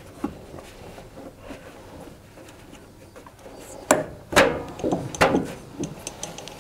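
A tumble dryer's rubber drive belt being worked by hand onto the motor pulley. Quiet rubbing and handling come first, then a few sharp knocks and clatters of the belt and parts against the dryer's metal and plastic housing, about four to five seconds in.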